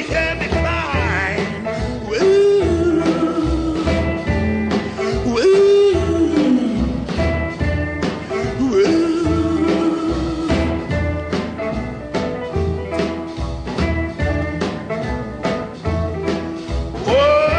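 A song with singing and a steady drum beat, in a blues or country style.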